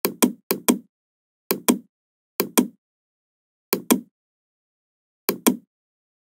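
Computer mouse button clicking six times, each click a sharp press followed by its release about a fifth of a second later, at uneven intervals.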